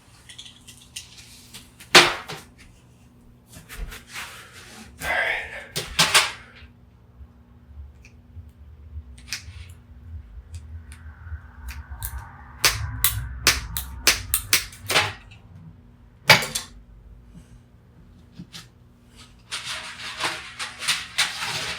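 A series of sharp clicks and snaps, with some rustling, from cords and plastic plugs being cut and worked apart with scissors.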